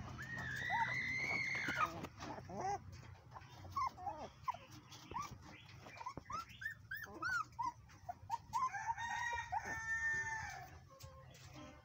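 Young puppies, about three weeks old, whining and yelping in many short high cries, with a longer drawn-out whine in the first two seconds and another about nine seconds in.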